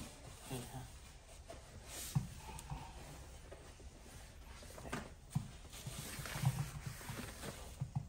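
Faint rubbing and rustling of a paper tissue wiping the edges of a dishwasher door, with a few soft knocks.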